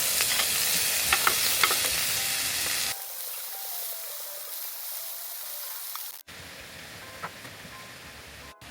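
Food sizzling as it fries in a hot pan, with a few sharp crackles in the first three seconds. The sizzle drops to a quieter level about three seconds in and changes again about six seconds in.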